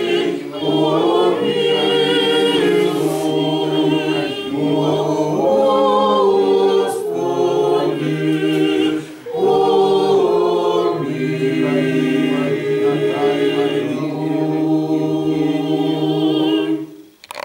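Small mixed group of parishioners singing an Orthodox church hymn a cappella in several parts, holding long chords. There is a brief breath break about nine seconds in, and the singing stops near the end.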